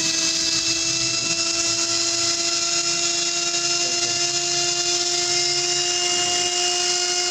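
Washing machine's universal motor running at high speed under test on a newly fitted universal control board: a steady whine over a hiss, its pitch creeping slightly upward.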